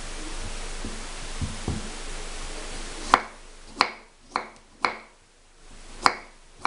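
Kitchen knife slicing boiled carrots into rounds on a wooden cutting board: a sharp knock of the blade hitting the board with each cut, about half a dozen of them from about three seconds in, after a steady low hiss.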